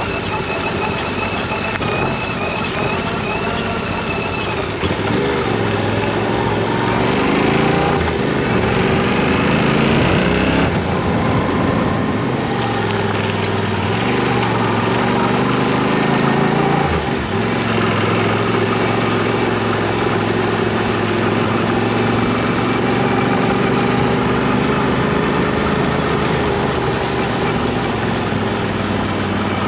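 Yamaha Ténéré 700's parallel-twin engine running under way on the move, its note rising and falling several times as the revs change, with a sharp drop in pitch a little past halfway.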